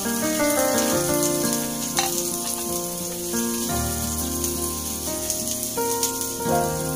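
Background instrumental music over the sizzle of minced garlic and onion rings frying in oil in a nonstick pan while they are stirred with a spatula.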